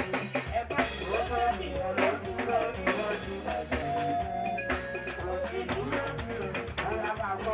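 Upbeat party music with a steady drum beat, a bass line and a singing voice.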